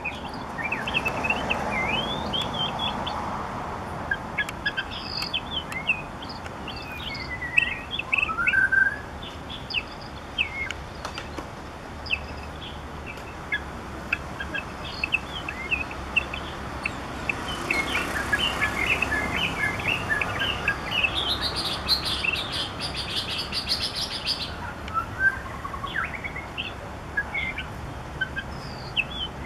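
White-rumped shama singing: a long, varied run of clear whistled phrases, with notes sliding up and down. About three quarters of the way through comes a fast, high trill.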